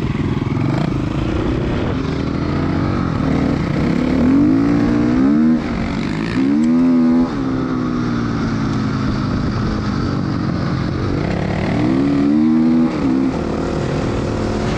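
Dirt bike engine heard from on board, running at speed and opening up hard three times, each time the revs climbing and then dropping sharply as the throttle closes or the next gear goes in.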